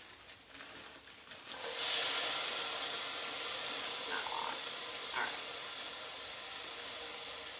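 Frozen pre-chopped onions hitting a hot, oiled frying pan start sizzling suddenly about one and a half seconds in, a steady hiss that eases slightly as it goes on.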